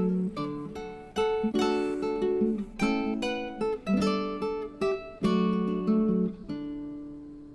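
Background music on acoustic guitar: plucked and strummed chords, the last chord ringing out and fading away near the end.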